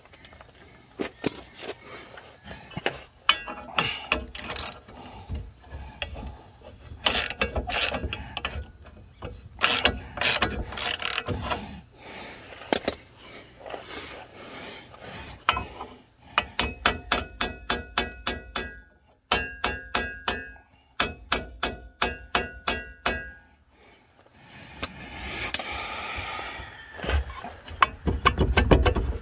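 Metal clinks and scrapes as a steel leaf spring hanger bracket and its bolt are handled, then a ratchet wrench clicking in three quick runs about halfway through as a nut is run onto the bolt. A few heavy metal knocks come near the end.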